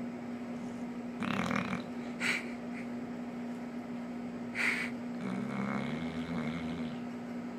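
American bulldog snoring in its sleep: a noisy breath about a second in, two short snorts a couple of seconds apart, then a low rattling snore. A steady hum runs underneath.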